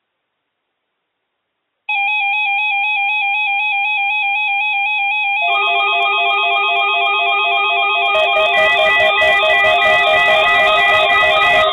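Weather alert radio receivers sounding their electronic alarms for the weekly test. One rapid warbling alarm starts about two seconds in, a second alarm tone joins about five and a half seconds in, and a third joins near eight seconds with crackling clicks.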